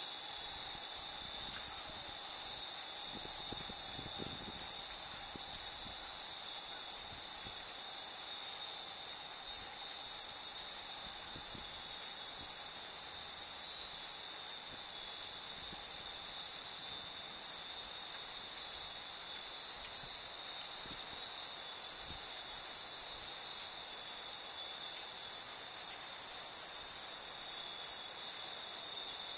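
Dense, steady chorus of insects: a continuous high-pitched shrilling that holds at one level without a break.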